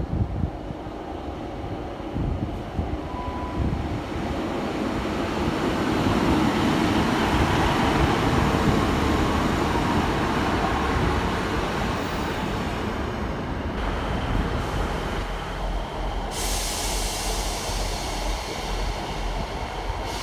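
Diesel train running at the station platform, its rumble swelling to a peak about halfway through. A sudden steady hiss starts about three-quarters of the way in.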